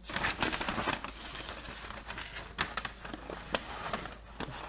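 Crinkling, rustling handling noise, densest in the first second and a half, then scattered sharp clicks.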